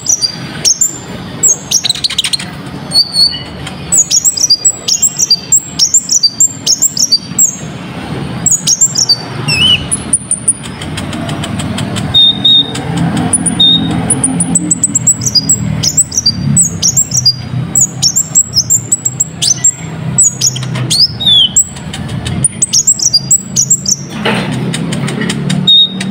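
Konin, the kolibri ninja sunbird, singing: a rapid string of short, sharp, high-pitched chirps and trills, sparser for a couple of seconds about ten seconds in.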